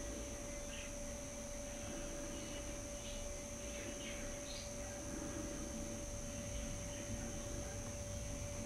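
Steady electronic hum with a high thin whine, the recording's own noise, over a low rumble. A few faint short high chirps come through about three to four and a half seconds in.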